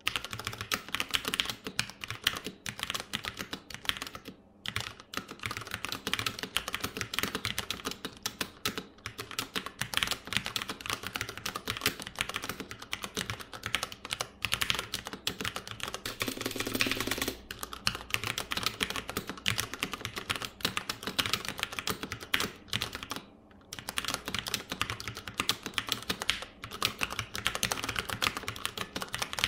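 Continuous fast typing on a Ducky One mechanical keyboard with Cherry MX Brown switches: a dense run of key clacks, broken by short pauses about four seconds in and again near twenty-three seconds.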